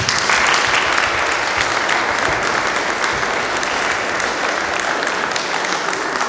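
Audience applause, many people clapping together; it starts suddenly and holds steady throughout.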